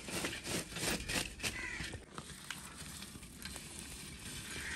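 Metal ladle scraping through a pit of hot charcoal embers, the coals crunching and clinking as they are scooped, busiest in the first two seconds. The embers are then tipped out against a mud-sealed pot to heap heat around it for dum cooking.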